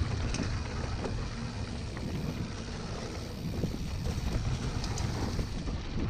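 Mountain bike descending a rough dirt trail: tyres rumbling over the bumps and the bike rattling, with wind buffeting the microphone and a few sharp clicks.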